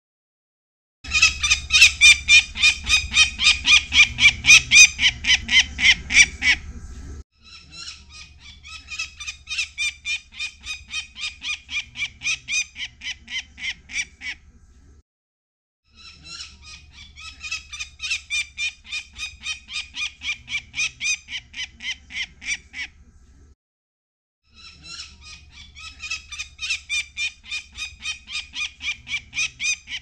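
Downy peregrine falcon chick calling harshly while being handled for banding: a rapid, evenly repeated cry, about three or four calls a second, in long runs that break off suddenly a few times.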